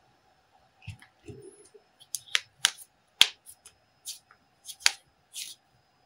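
Laptop keyboard keys and computer mouse buttons clicking: about seven irregular sharp clicks, with two soft low thumps about a second in.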